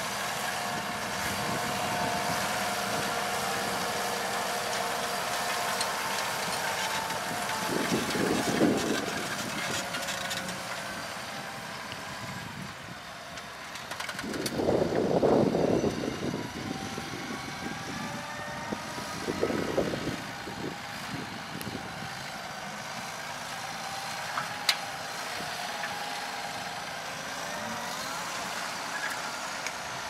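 Fendt 720 Vario tractor's engine running under load, its pitch drifting up and down. Three louder rushing swells come through, the loudest about halfway.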